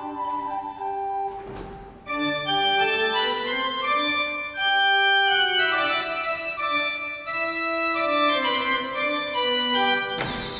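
Late-18th-century Italian pipe organ (Roccatagliata/Ciurlo, 1794) playing a sonata in sustained, overlapping notes. A short break comes just before two seconds in, and then the line resumes.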